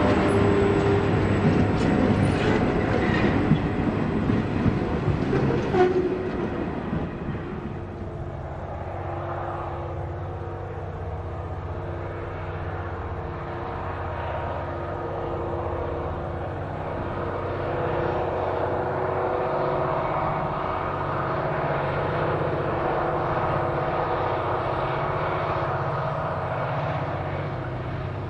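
Freight wagons rolling past close by, their wheels clicking and clattering over the rail, for the first six seconds or so. The sound then drops to the steady low drone of diesel freight locomotives working in the distance.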